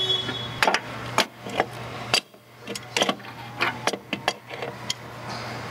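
Hand wrench working on bolts in a car's engine bay: irregular sharp metallic clicks and taps, a few each second.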